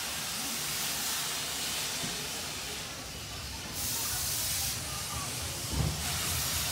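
Narrow-gauge steam locomotive Sir Haydn hissing steam as the train starts to pull slowly away, the hiss swelling in slow beats every couple of seconds. Under it is a low rumble of the coaches beginning to roll, and a single knock comes near the end.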